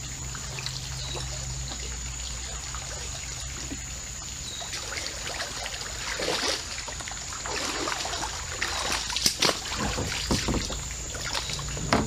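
Shallow creek water trickling steadily, then a run of irregular splashes and sloshes from about halfway on as a hooked bluegill is brought through the water to the kayak and lifted out.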